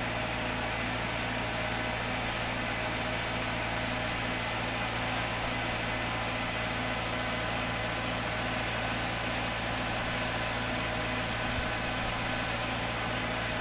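Engine idling steadily, a constant low hum with no change in speed, most likely the line crew's truck left running at the work site.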